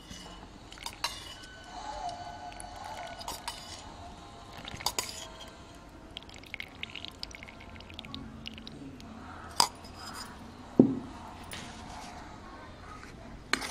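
Scattered light clinks of a steel tumbler and a metal spoon against a bowl as lemon juice is poured over spice powders for a fish marinade, with two sharper knocks around ten seconds in.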